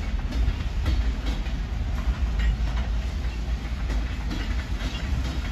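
Freight train of loaded gondola cars rolling past, a steady low rumble with irregular sharp clicks and clanks every half second or so.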